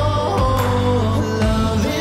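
A song playing: a voice singing over held low notes.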